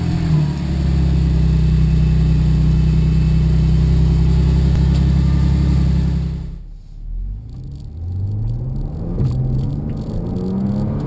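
Audi S4 B8's supercharged 3.0-litre V6 running steadily through an aftermarket exhaust. About six and a half seconds in the sound breaks off suddenly. After that the engine note climbs again and again as the car accelerates.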